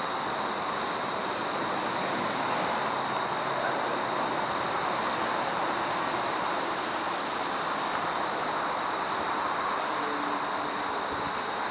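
Distant CN diesel freight train approaching: a steady, even rumble, with a constant high-pitched drone over it. Faint engine tones come in near the end as the locomotives draw closer.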